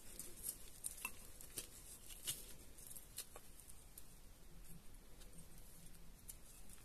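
Faint, scattered rustles and small scratches of hands sprinkling potting mix into a plant pot and pressing it down around the plant.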